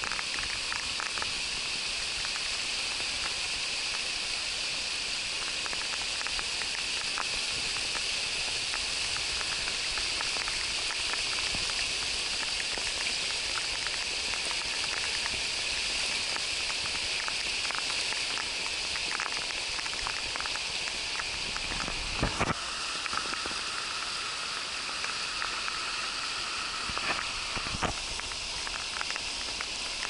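Steady rain hiss with many raindrops pattering on the camera, over the rush of a swollen, fast-flowing river. There are a few louder knocks about two-thirds of the way through and near the end.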